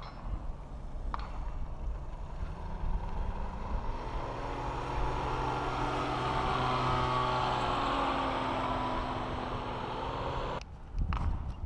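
Powered paraglider trike's engine and propeller flying low past, growing louder and then dropping in pitch as it goes by, with wind rumbling on the microphone. The engine sound cuts off abruptly near the end.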